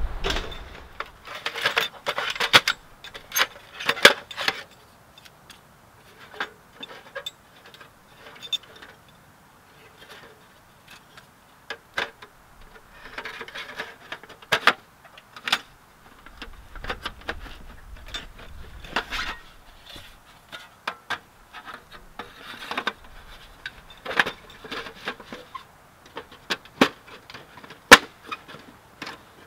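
Metal clicks, clanks and scrapes as a folding sheet-metal tent stove is unpacked and its hinged panels are unfolded and fitted together, with rustling of gear bags between the knocks.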